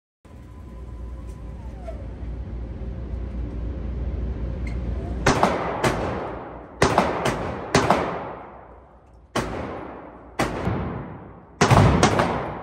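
Pistol shots fired on an indoor shooting range, about nine in an uneven string beginning about five seconds in, each followed by a long echo off the range walls. The last two come close together and are the loudest. A steady low rush builds up before the first shot.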